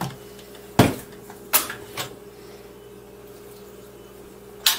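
Plastic blender jar knocking as it is lifted off its motor base and handled on the counter: a few sharp clunks, the loudest about a second in and another near the end, over a faint steady hum.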